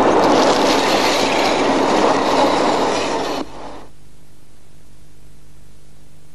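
Cockpit escape reel paying out its metal band through its braking mechanism as a person descends from the 747 cockpit: a loud, steady mechanical rush that stops about three and a half seconds in, when the descent ends, leaving a low steady hum.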